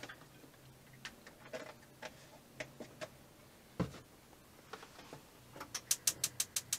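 Gas hob's spark igniter clicking rapidly, about six sharp clicks a second, starting near the end as a burner is lit to warm milk. Before it, a few light clicks and one soft knock about four seconds in as a small pan is handled on the hob.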